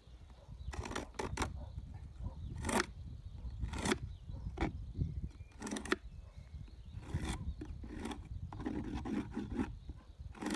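Irregular knocks and scrapes of a hive tool working on a wooden beehive box, scraping it clean, over a low rumble of wind on the microphone.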